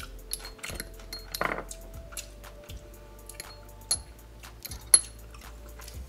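Miniature metal fork and spoon clinking and scraping against a tiny ceramic bowl: a run of light, ringing clicks, the sharpest about five seconds in.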